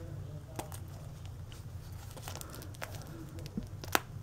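Fingernails picking and scratching at the plastic shrink wrap on a Blu-ray case: faint crinkles and small irregular clicks, with one sharper click near the end.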